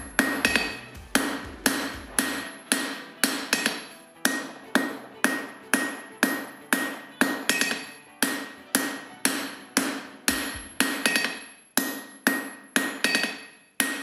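Hand hammer striking hot steel on an anvil in a steady rhythm, about two blows a second, each blow followed by a bright metallic ring: a blacksmith forging the corner of a knife blade.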